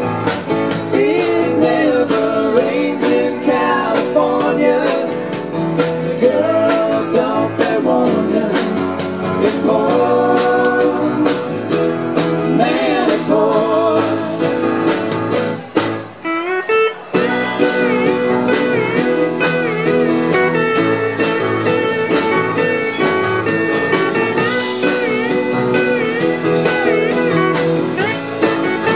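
A live band playing a soft-rock song on acoustic guitar, bass, keyboard, drums and lap steel guitar, with sliding and wavering notes over sustained chords. The band drops away briefly about 16 seconds in, then comes back with long held chords.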